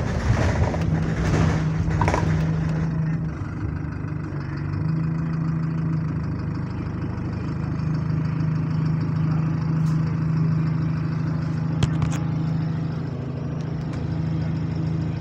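Bus engine running under way, heard from inside the cabin as a steady low moaning drone, with a louder rushing noise over the first few seconds and a couple of brief clicks later on. The engine is described as moany, with the bus running in limp mode.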